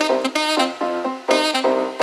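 Background music with short, punchy brass stabs in a quick rhythm.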